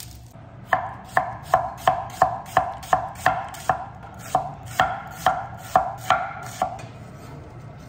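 Chef's knife slicing an onion on a wooden cutting board: a run of about fifteen crisp knife strokes, two or three a second, each ending in a knock of the blade on the board, stopping near the end.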